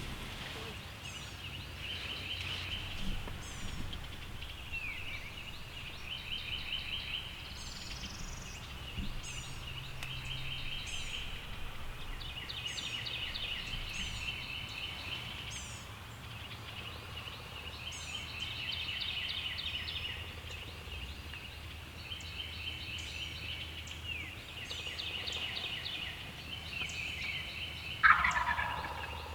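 Wild turkeys gobbling over and over, short rattling calls in quick succession, with one loud gobble near the end. Thin, high, falling calls from other birds sound above them.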